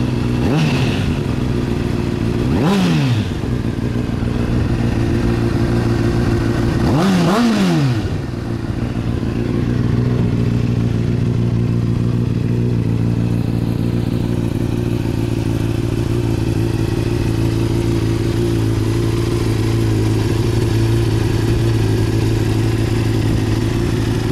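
Warmed-up 2008 Honda CBR600RR inline-four engine, revved up sharply and let fall back twice, about three and seven seconds in. It then settles into a steady idle.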